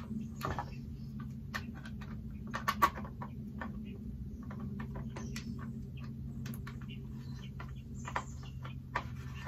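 Light, irregular clicks and rattles as a cordless chainsaw's chain and bar are fitted by hand, over a steady low hum.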